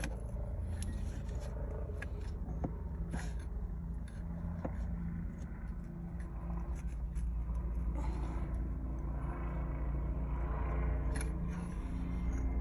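Small metallic clicks, knocks and scrapes of an aftermarket steering-wheel hub being worked onto the steering-column splines, where it binds and won't seat. Underneath is a steady low engine drone.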